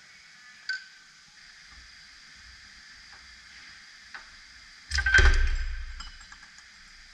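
A piston with its connecting rod, pulled from a Cursor 13 diesel block, set down on a metal plate about five seconds in: one loud metallic clank with a low ring that fades over about a second. A light click comes about a second in.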